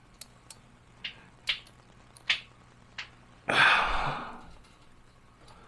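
Small plastic kit parts clicking and tapping as they are handled and fitted together, about six separate clicks, followed about three and a half seconds in by a short breathy rush of noise.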